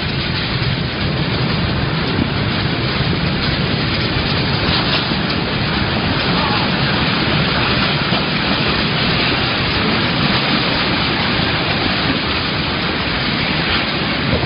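Typhoon wind and heavy rain: a loud, steady rushing noise with a few faint ticks scattered through it.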